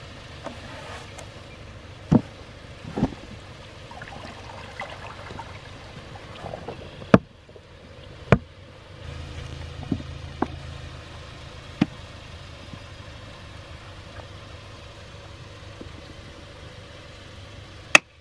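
Wooden flashboards knocking sharply against the slots of a metal water-control flume as they are set in to hold water back in a cranberry bed, about eight separate knocks. Underneath, the steady rush of water spilling over the boards.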